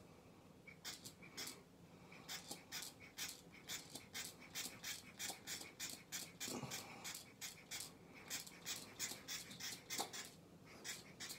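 Beard filler being brushed into beard hair and skin: faint, quick scratchy strokes, about three a second, pausing briefly near the start and near the end. A soft bump about two-thirds of the way through.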